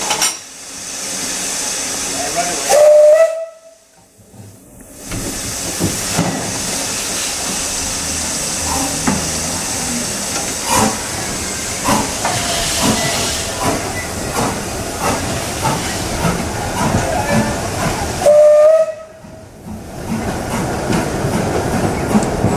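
Isle of Man Railway steam tank locomotive No. 12 hissing steam at a standstill and sounding its whistle twice, short loud blasts about three seconds in and again near the end. From about the middle it starts away with its coaches, giving a run of slow exhaust beats and knocks under the steady hiss.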